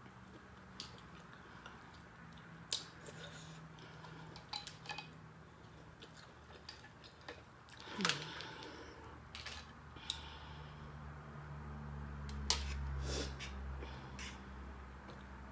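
Close-up eating sounds while working through a seafood boil: scattered clicks and small crackles of shells and utensils being handled, with a louder click and short falling squeak about eight seconds in and a low hum near the end.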